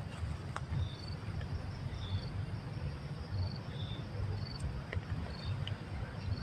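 Forest insects, crickets or similar, chirping: short high chirps repeat every half second or so over a steady high insect drone, with a low rumble beneath.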